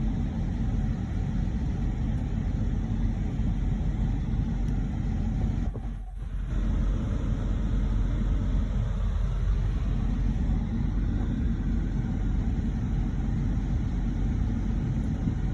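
Steady low rumbling noise, dipping briefly about six seconds in.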